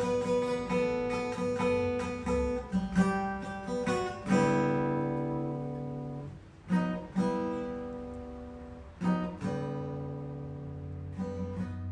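Background music: acoustic guitar playing plucked notes and strummed chords that ring out and fade.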